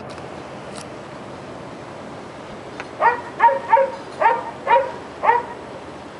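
A dog barking: six short barks in about two and a half seconds, starting about three seconds in, over a steady background hiss.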